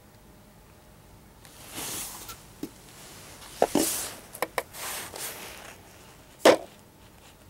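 Handling noise of small salvaged electric motors being moved about and set down on dirt ground: rustling, a few short clicks and clunks, and one sharp knock near the end, the loudest sound.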